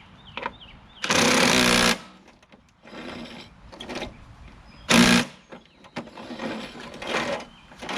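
A handheld power tool runs in two bursts, about a second long a second in, then a short one about halfway, with lighter clatter of parts between.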